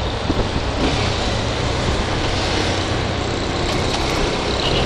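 Honda CB300R's single-cylinder engine running steadily at low speed, mixed with steady wind noise on the microphone, with traffic around it.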